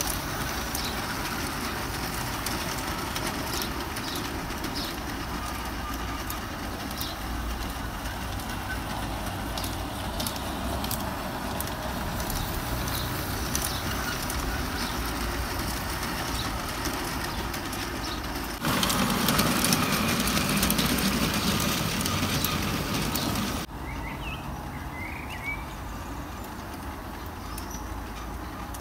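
LGB garden-scale model train running on brass track: the small locomotive's electric motor and the wheels of home-built wooden-frame mine cars rolling in a steady rumble, louder for about five seconds a little past the middle. Birds chirp near the end.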